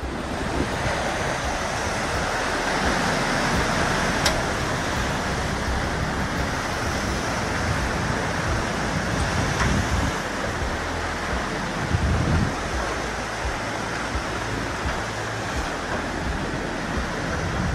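Tsunami surge flooding over a low coastline: a steady rush of churning seawater. A sharp click comes about four seconds in and a brief louder surge near twelve seconds.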